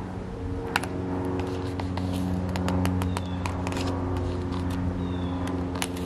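A motor vehicle's engine running steadily with a low hum, its pitch shifting slightly, with a scatter of light clicks and rustles over it from about a second in.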